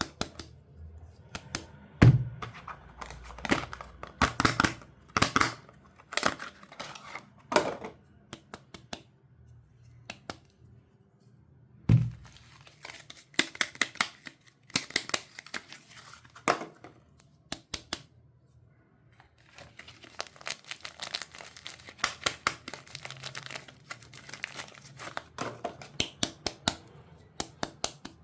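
Soap packaging being unwrapped by hand: irregular crinkling, crackling and tearing of the wrapping. There are two dull thuds, one a couple of seconds in and one about twelve seconds in, and short pauses between bursts of rustling.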